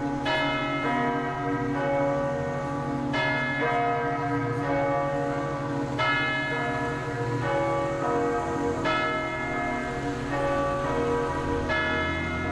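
Nantes cathedral's bell tolling the death knell, a slow stroke about every three seconds, five strokes in all, each ringing on under the next.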